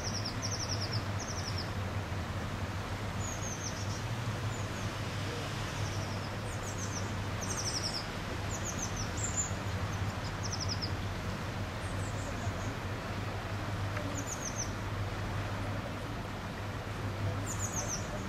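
Small songbirds chirping in short, high, quick-trilled phrases that come and go every second or so, over a steady low background rumble.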